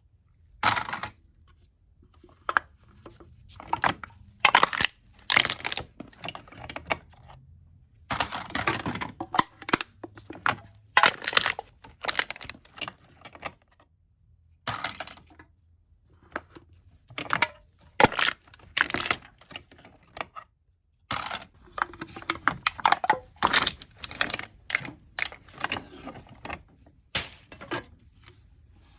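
Aluminium cans being crushed, crinkling and crackling in repeated bursts of sharp creases and snaps separated by short pauses.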